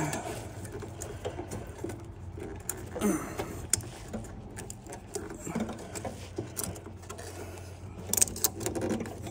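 Hands working a riding mower's slipped drive belt back onto its pulley: scattered light clicks and scrapes of the belt and metal parts, with a brief cluster of louder clicks about eight seconds in, over a low steady hum.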